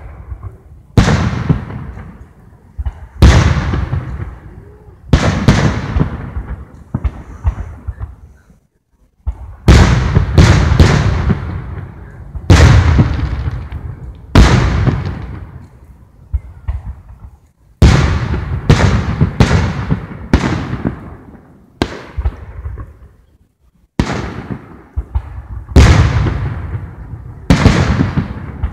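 Aerial firework shells bursting one after another, a sharp boom every second or two, some in quick clusters, each dying away over about a second.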